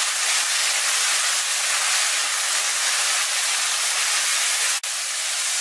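Diced potatoes and pork belly sizzling steadily in a hot wok as they are stir-fried in oil and soy sauce. The sizzle cuts out for an instant near the end, then carries on.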